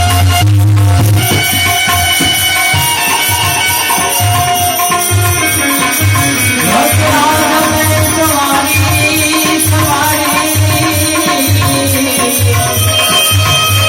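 Instrumental passage of live Gujarati devotional bhajan music: a hand drum keeps a steady beat under a sustained melody instrument.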